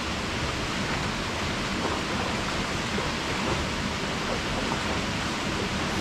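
Waterfall's water rushing steadily, an even, unbroken wash of falling water.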